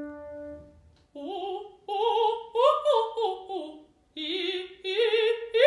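A single piano note sounds and fades, then a trained operatic female voice sings two short warm-up vocalises with vibrato, each phrase climbing and then stepping back down in pitch.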